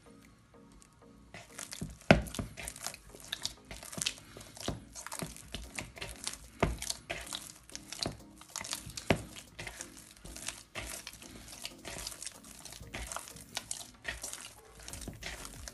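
A hand kneading soft, sticky dough in a plastic bowl as butter is worked into it: an irregular run of wet smacks and squishes, several a second, starting about a second in. Faint background music underneath.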